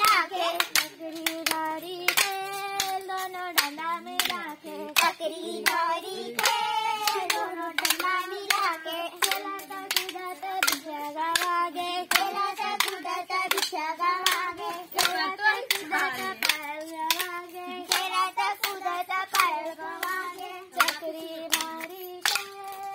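Young girls singing a folk song together while striking short wooden dance sticks against each other on a steady beat, a stick dance.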